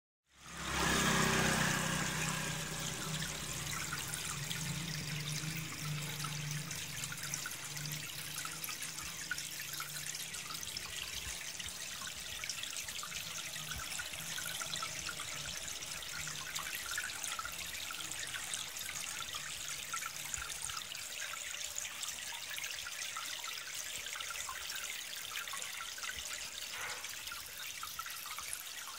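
Water trickling and splashing steadily in a fish pond, a continuous fine splashy hiss.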